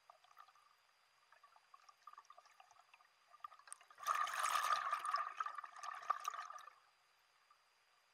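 Scuba diver's exhaled breath bubbling out of the regulator, heard underwater through the camera housing: a gurgling rush of about three seconds starting around four seconds in, with faint scattered crackles before it.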